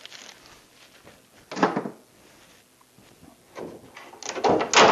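Hollow wooden knocks and clatters: one knock about a second and a half in, then a run of them near the end, the last the loudest. These are scrap boards being set down and pulled from a pile.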